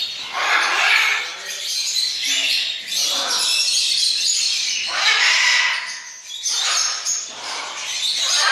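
Many pet-store parrots, such as conures and lovebirds, squawking and chirping over one another in a harsh chorus of repeated calls.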